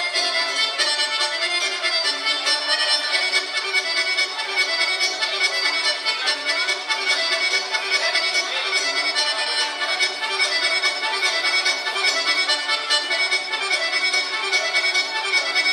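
Accordion playing a Serbian folk dance tune from Šumadija, continuous and with a quick, even beat.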